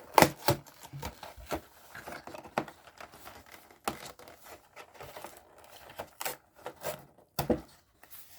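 Cardboard of a Kinder Joy display box being torn open along its perforated tear-here flap and handled, a series of irregular short rips, crackles and taps.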